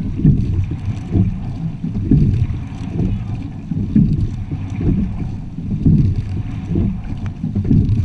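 A sculling quad moving through the water: a low rush of water along the hull and wind buffeting the microphone, swelling and easing about once a second.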